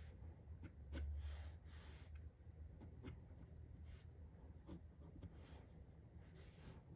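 Faint pencil strokes scratching on drawing paper: a few short sketching strokes about a second in and again near the end, over a low steady hum.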